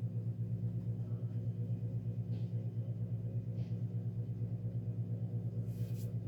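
Minka-Aire Spacesaver ceiling fan running with a loud, steady buzzing hum from its motor. A few faint brief ticks or rattles come through over the hum.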